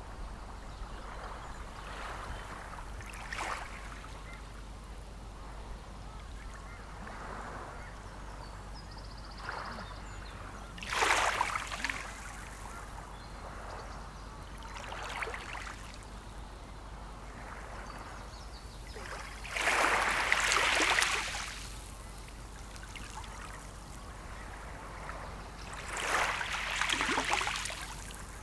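Small sea waves washing in one after another. Each is a short splash and hiss lasting a second or two, and the biggest comes about twenty seconds in. A steady low rumble runs underneath.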